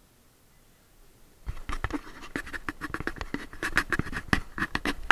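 Handling noise on the action camera: irregular scratching, rubbing and clicking against its housing and mount, starting about a second and a half in and getting louder.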